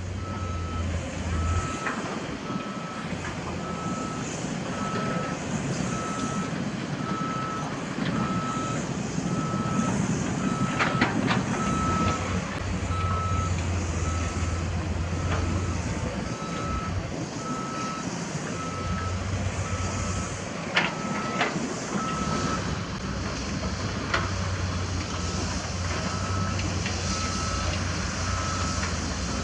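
Reversing alarm on heavy construction machinery, beeping at one high pitch about once a second, over the steady running of diesel engines. A few sharp knocks come through about a third and two-thirds of the way in.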